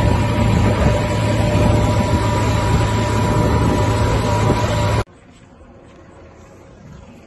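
Tractor engine running loudly and steadily while the tractor is driven, with a low drone and a thin steady whine over it. It cuts off suddenly about five seconds in, leaving only faint background noise.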